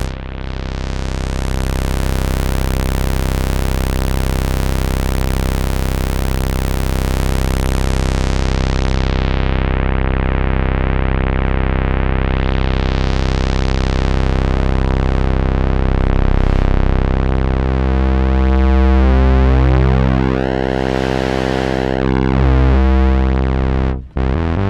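Teenage Engineering OP-1 Field synthesizer playing a held, buzzy chord whose brightness fades and returns midway. From about two-thirds of the way through, the notes move in steps.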